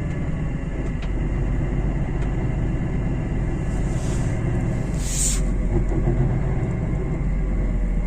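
Car on the move: a steady low hum and rumble of tyres and running gear, the drone typical of a worn wheel hub bearing. A short hiss comes about five seconds in.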